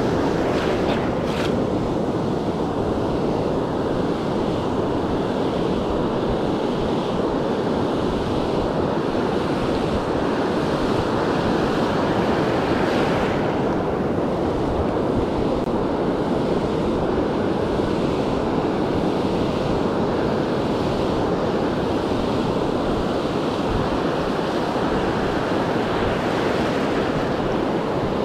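Ocean surf breaking and washing up the sand in a steady wash, with wind buffeting the microphone.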